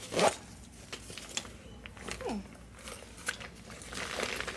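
Handling noise: scattered clicks and rustles as items and the camera are handled, with a loud click right at the start, a short falling tone about two seconds in, and a burst of rustling near the end.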